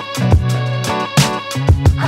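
Background music with a steady beat and pitched instruments.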